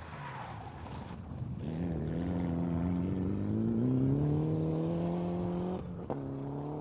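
Turbocharged four-cylinder engine of a Mitsubishi Lancer Evolution rally car accelerating hard on gravel, its note climbing steadily through a gear. About six seconds in it breaks off briefly for an upshift and carries on at a lower pitch.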